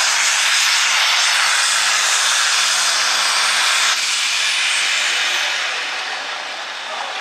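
Light Pro Stock pulling tractor's turbocharged diesel engine running flat out under load, loud and harsh. About four seconds in it cuts off suddenly as the pull ends, leaving a high whine that falls in pitch as the engine winds down.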